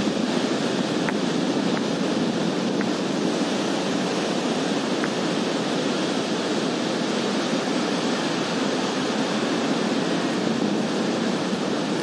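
Ocean surf breaking on a sandy beach: a steady rush of waves, with wind.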